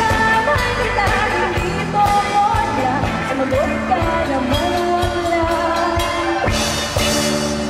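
A young woman singing a pop song into a microphone, backed by a live band of bass guitar, electric guitar and drums, all amplified.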